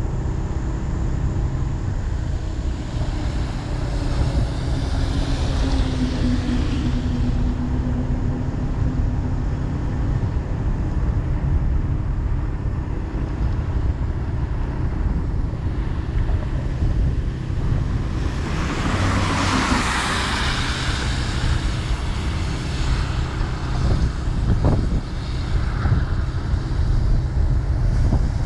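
Steady low rumble of a vehicle travelling along a road, with a louder rushing swell about two-thirds of the way through.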